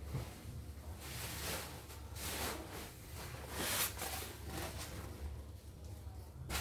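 Bubble wrap and polystyrene foam packing rustling and rubbing as a foam box is lifted out of a shipping carton, in several short bursts.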